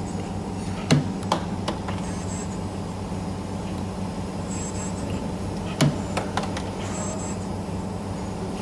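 ST25-10 CNC spring forming machine running with a steady hum while forming 1.8 mm torsion springs, with two short clusters of three sharp clicks about five seconds apart, one per forming cycle.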